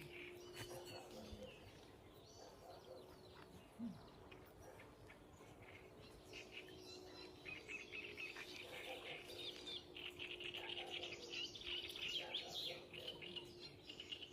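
Birds chirping in rapid high twittering, busiest in the second half, over a faint steady low hum.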